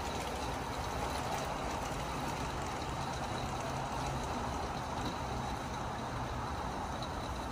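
G-scale USA Trains model diesel locomotive and container cars rolling along garden track: a steady running noise with a low hum underneath.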